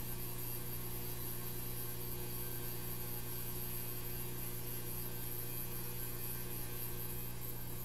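Steady electrical mains hum over a constant hiss.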